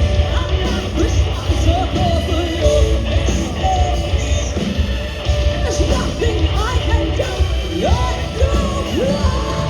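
Live hard rock band playing loud, with heavy drums and bass under a melodic line that slides up and down in pitch.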